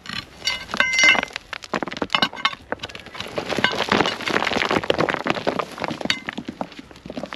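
Steel pry bar striking and levering against stones in a rocky dirt bank, giving sharp ringing metallic clinks for the first second or so. Then loose soil and stones break away and slide down in a dense crackling rush for a few seconds, with one more clink near the end.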